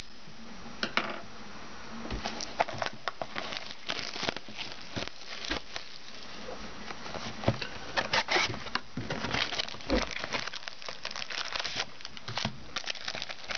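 Plastic and foil packaging of a football trading card box crinkling and tearing as it is opened, with irregular rustles and small taps.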